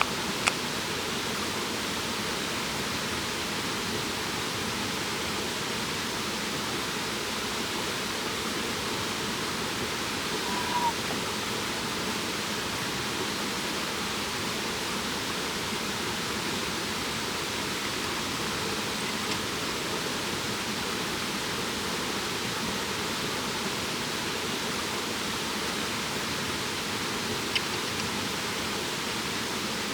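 Steady rushing of running water, even and unbroken, with a few sharp pops near the start and near the end and a brief high note about a third of the way through.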